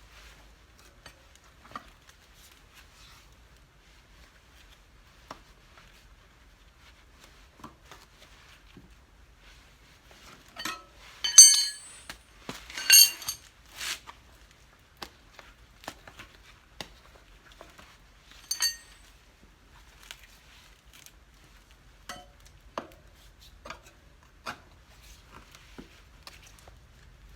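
Metal hand tools clinking and knocking during a cart-wheel tyre change, with scattered light handling clicks. About halfway through comes a run of loud, ringing metallic clinks, and one more a few seconds later.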